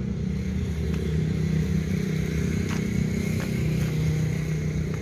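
A road vehicle's engine running steadily at low speed, heard from on board as a continuous low drone, with a few light clicks and rattles.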